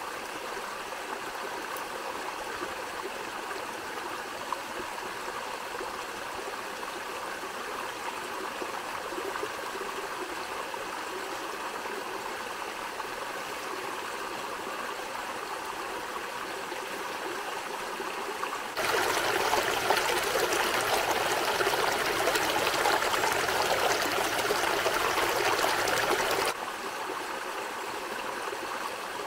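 Small waterfall and stream splashing steadily over mossy rocks. For about eight seconds past the middle the rush of water is much louder and brighter, starting and stopping abruptly.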